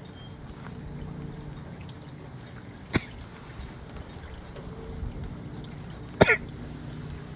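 Gusty wind and rain making a steady rushing noise, broken by two sharp loud pops: one about three seconds in and a louder double one near the end.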